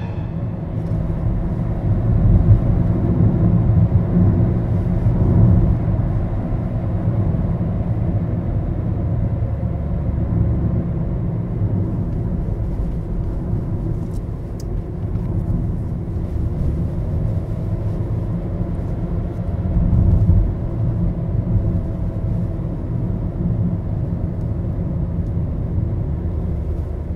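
Steady low rumble with a faint hum in it, swelling slightly about two-thirds of the way through.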